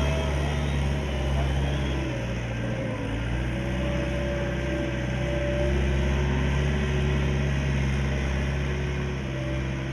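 A machine's engine running steadily, with a low hum and a fainter whine that wavers in pitch above it.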